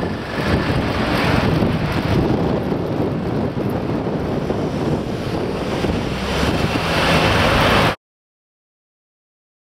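Wind buffeting a microphone riding along on a moving bicycle, mixed with road and traffic noise, as a steady loud rush. It cuts off abruptly to dead silence for the last two seconds or so.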